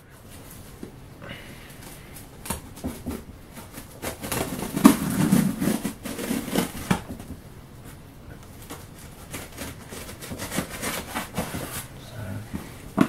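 Cardboard shipping box being handled and shifted on a table: scrapes, knocks and rustling of the cardboard, loudest about five seconds in, then fingers scratching at the packing tape near the end.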